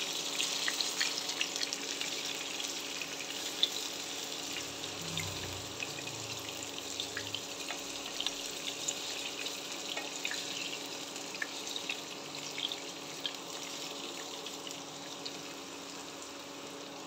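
Eggplant pieces shallow-frying in hot oil in a nonstick pan: a steady sizzle with scattered crackles and pops, easing off a little toward the end.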